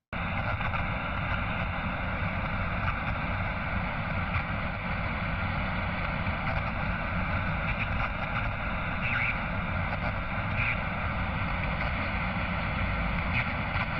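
Steady rushing noise that starts abruptly and holds even throughout, with a few faint ticks on top.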